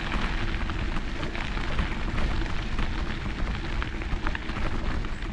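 Bicycle tyres rolling over a fine gravel path: a steady crackling crunch, with wind rumbling on the microphone.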